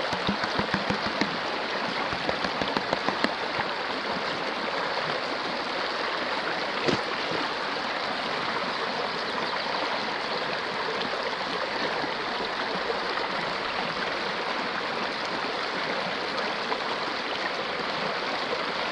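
Shallow river running steadily over rocks, a constant rushing flow, with a few light splashes in the first few seconds and once about seven seconds in.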